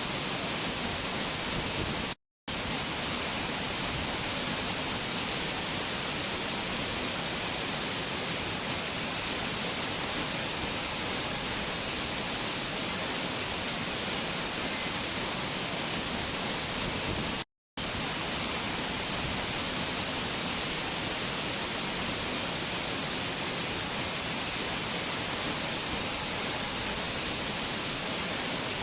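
Waterfall: water pouring down steadily, an even rushing noise with no change in level. It cuts out completely for a split second twice, about 2 seconds in and again near the middle.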